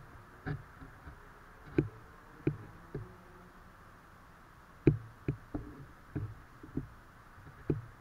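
Irregular sharp clicks and taps, about a dozen in two clusters with a pause of a couple of seconds between them, over a faint steady hiss.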